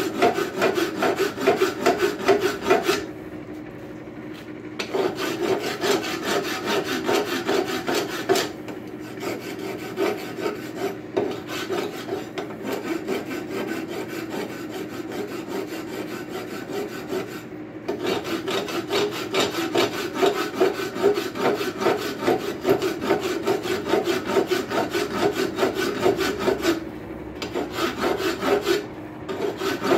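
A worn farrier's rasp being pushed in rapid scraping strokes across the edge of a rail-spike hinge, hot rasping a sharp lip down to a bevel and taking off a lot of metal. The strokes pause briefly a few seconds in and again near the end.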